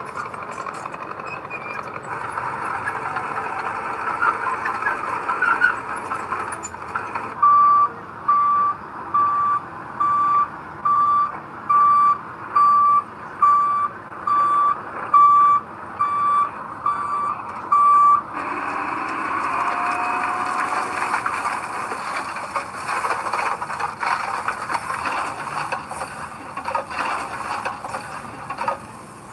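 Reversing alarm on a heavy earthmoving machine: about thirteen evenly spaced single-pitch beeps, a little more than one a second, starting about a third of the way in and stopping after about ten seconds. Under it a diesel engine runs steadily, and the machinery noise grows louder once the beeping stops.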